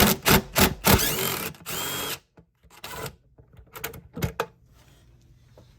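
DeWalt cordless power driver with a 10mm socket, run for about two seconds to back out a screw. A few separate clicks follow, from the socket and the loosened screw being handled.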